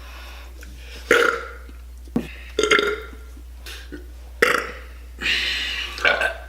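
A man burping several times in a row: a few short belches, then a longer, drawn-out one about five seconds in.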